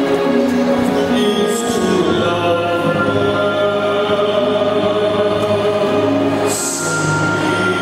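Choral programme music with long held sung notes and chords, played over the rink's sound system for a figure-skating routine. A short burst of hiss cuts in about six and a half seconds in.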